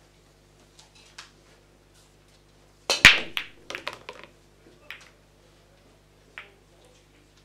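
Pool break shot in 9-ball: a loud crack about three seconds in as the cue ball smashes into the racked balls, followed by about a second of balls clacking against each other and the cushions, then a couple of lone clicks as they roll apart.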